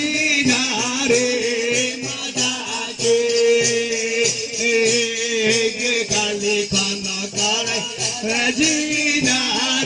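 Live devotional folk music (Maithili jhumar). A barrel hand drum keeps a steady beat under rattling, jingling percussion strokes, with a sustained melody line held over them.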